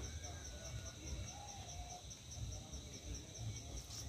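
Crickets chirping in a high, fast, evenly pulsing trill, over a low rumble, with a short rush of noise near the end.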